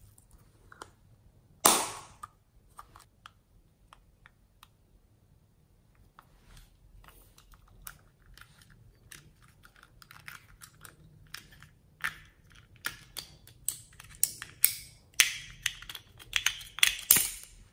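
Small plastic cases handled by hand, clicking and snapping: one sharp snap about two seconds in, scattered light ticks, then a run of clicks and taps that comes thicker near the end.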